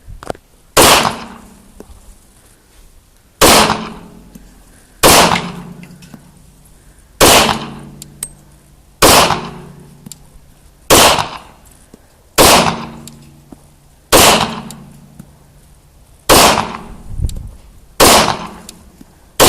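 Glock 22 .40 caliber pistol fired about ten times in slow, deliberate succession, roughly one shot every one and a half to two seconds, each report trailing off in an echo.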